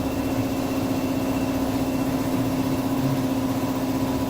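Seat Ibiza 1.2 TDI three-cylinder diesel engine idling steadily while cylinder one loses compression past a burnt, leaking injector seal.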